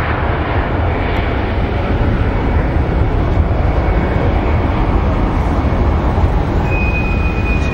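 Twin-engine jet airliner's engines rumbling steadily as it rolls along the runway, with a thin steady whine coming in near the end.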